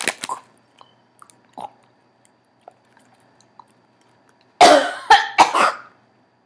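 A woman coughing hard three times in quick succession, set off by a burning horseradish-flavoured snack that has made her eyes water.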